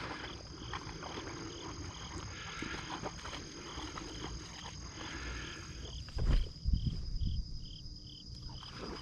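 Steady high insect trilling with a faint regular chirp about three times a second. Several low thumps on the microphone about six to eight seconds in.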